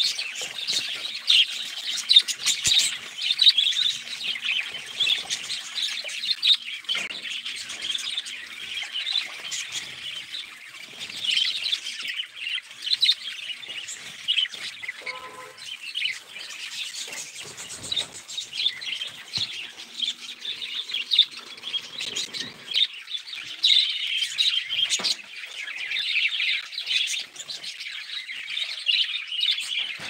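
Budgerigars chattering, a dense run of short overlapping chirps and warbles that never stops.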